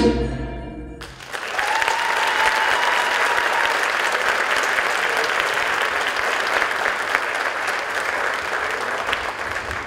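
The closing notes of the music die away, then a theatre audience applauds steadily, with one held high call from the crowd about a second and a half in.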